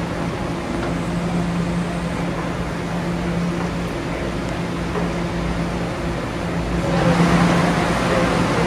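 Steady hum of a New York City subway train standing at an underground platform with its doors open, over the noise of the station. About seven seconds in, the noise grows louder and fuller.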